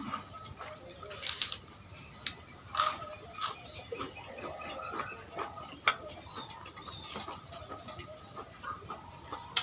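Eating sounds: a mouthful of spicy noodle soup slurped and chewed, with utensils clicking against the bowl now and then. Chickens cluck in the background.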